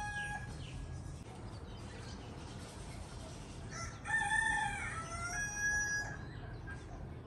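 A rooster crowing: one drawn-out crow of about two seconds begins about four seconds in, and the end of an earlier crow trails off right at the start, over a low steady background rumble.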